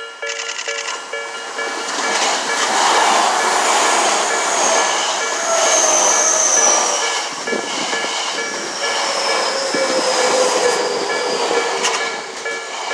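Japanese level crossing warning bell ringing steadily while an electric train passes through the crossing. The rush and rumble of the train build about two seconds in and last about ten seconds, with a high whine that slowly falls in pitch.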